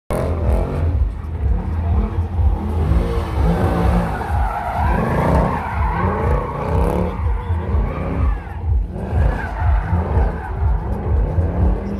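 Mercedes C63 AMG's V8 revving hard while drifting, its pitch rising and falling again and again over a heavy low rumble, with tyres skidding and squealing on the tarmac.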